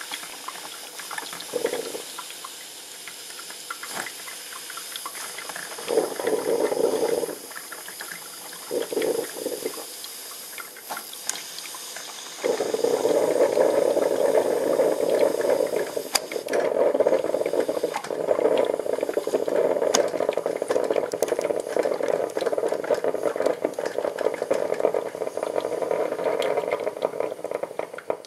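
Coffee maker heating water: a steady hiss with short gurgling spurts about 2, 6 and 9 seconds in, then continuous gurgling from about 12 seconds on as it percolates.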